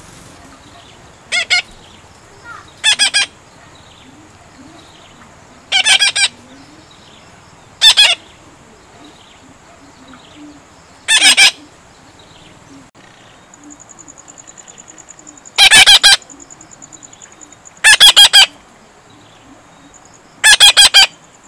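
Young green parakeets being hand-fed give loud, rasping squawks, singly or in quick pairs, every two to three seconds. These are the begging calls of parrot chicks at feeding.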